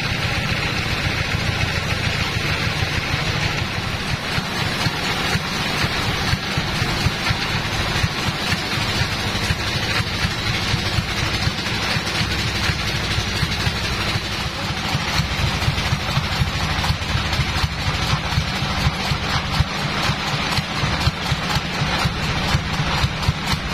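Log bandsaw mill running: a steady low machine hum under dense noise filled with fine crackling clicks.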